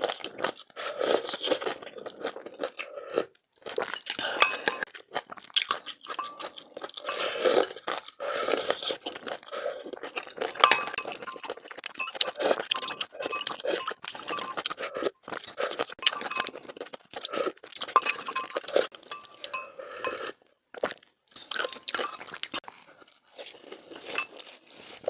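Close-miked eating: crisp crunching bites and chewing that go on almost without a break, with two short pauses between mouthfuls.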